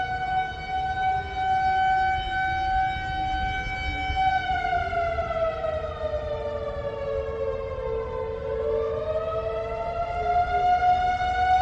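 Warning siren sounding a held tone that slowly falls in pitch and then rises back to it, the alarm for an earthquake mock drill.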